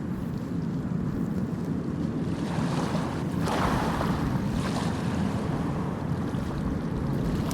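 Sea waves washing on the shore, with wind rumbling on the microphone; a wave surges louder about three and a half seconds in.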